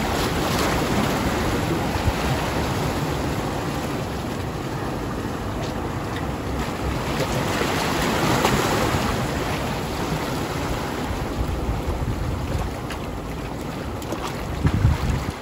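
Sea surf washing against shore rocks, with wind buffeting the microphone in low thumps near the end.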